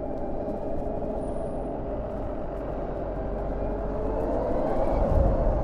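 Harley-Davidson LiveWire electric motorcycle under way: a steady whine from the electric drive, rising in pitch about three seconds in as the bike speeds up, over a low rumble of wind and road noise.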